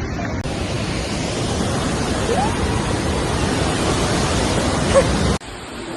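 Rushing water of a large waterfall, a loud steady hiss without any tone. It drops abruptly to a quieter level near the end.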